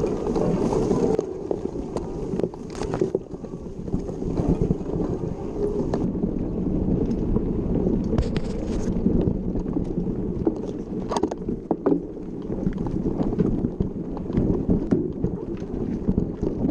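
Wind buffeting the microphone of a camera riding along on a mountain bike, a steady low rumble, with scattered clicks and knocks from the bike rattling over rough trail.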